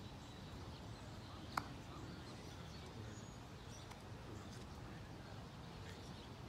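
Faint outdoor ambience with a steady low rumble, and one sharp click about a second and a half in.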